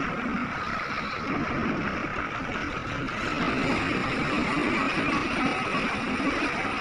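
Heavy earthmoving machinery running steadily, a continuous engine drone.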